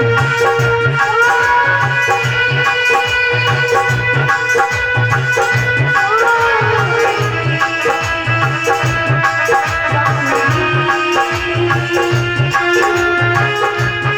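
Indian devotional folk music: a hand drum keeps a steady, even beat under held melodic tones, with a rattling percussion sound.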